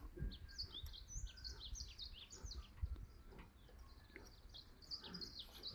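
Small birds chirping in quick, repeated short falling notes, with a few faint low knocks underneath.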